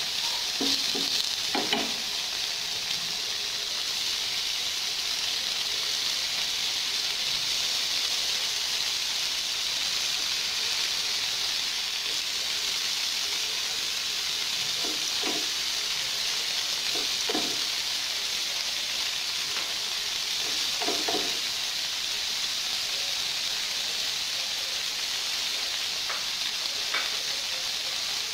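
Cubes of tofu sizzling steadily as they fry in oil in a nonstick pan. A few short knocks come as the pieces are turned over by hand and with a wooden spatula.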